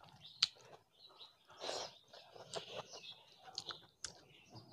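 Fingers mixing cooked rice with curry on a plate: soft wet squishing with short sticky clicks as the hand presses and kneads the rice.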